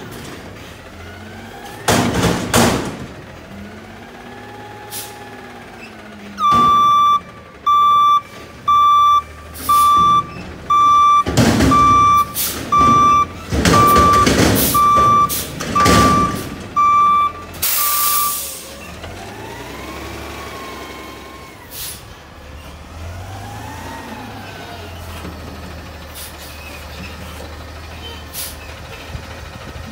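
Front-load garbage truck servicing a dumpster: loud metal bangs from the container near the start, then the hydraulic arms whining up and down. The reversing alarm beeps about once a second for roughly ten seconds, with more loud bangs over it, and the air brakes release with a hiss just after.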